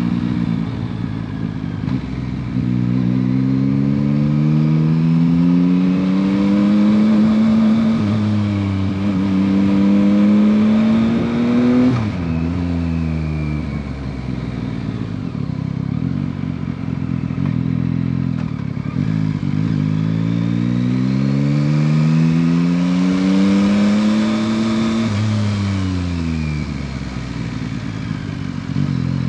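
2021 Yamaha MT-09 SP's 890 cc inline three-cylinder on its stock exhaust, pulling hard through the gears. The revs climb, dip briefly at each upshift, then fall away sharply about twelve seconds in as the bike slows. It runs quieter for a few seconds, builds up again through the gears, falls away once more near the end and picks up again.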